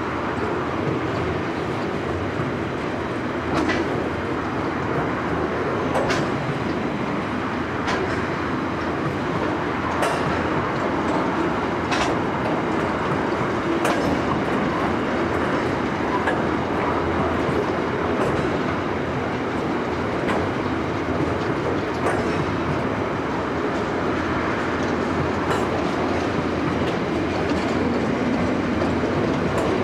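Freight train of boxcars and container wagons rolling past: a steady rumble of steel wheels on rail, with a sharp click about every two seconds.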